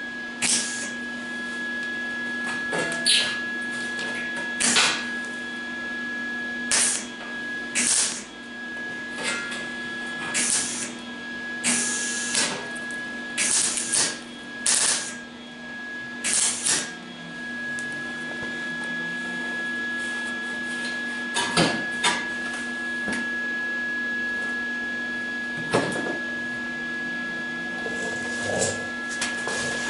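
Welder laying a series of short tack welds on the thin sheet steel of a 1974½ MGB front valance, each a brief burst of arc noise, about one a second for the first half, then a few more spaced apart. A steady hum sits under them throughout.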